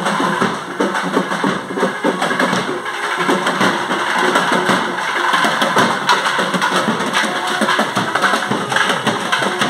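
Loud percussion-driven traditional music with rapid, dense drum strokes.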